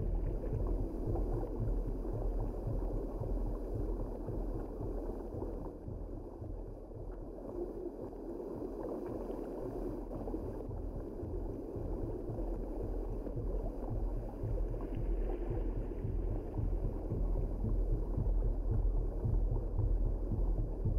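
Underwater ambience: a steady low rumble with a haze of gurgling water noise, a little louder near the end.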